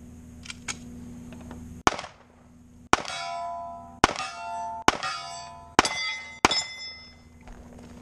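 Six pistol shots about a second apart, each followed by the metallic ring of a steel target plate being hit.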